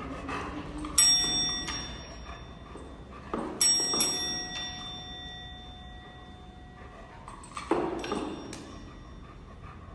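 A golden retriever's paw presses a chrome service desk bell again and again. It rings about five times: once about a second in, twice around three and a half to four seconds, and twice near eight seconds. Each ring is a bright ding that fades out slowly, and a dull thump of the paw comes with some of the strikes.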